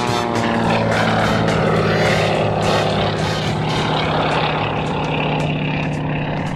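Pratt & Whitney R-985 nine-cylinder radial engine and propeller of a Waco UPF-7 biplane running at high power through a low aerobatic pass, a steady loud drone.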